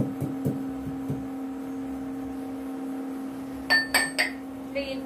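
Metal kitchen utensils and dishes clinking: a quick run of three sharp, ringing clinks about two-thirds of the way in, then another clink near the end. A steady low hum runs underneath.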